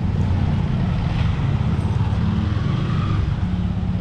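Yamaha MT-15's 155 cc single-cylinder engine running steadily at low speed as the motorcycle rides off.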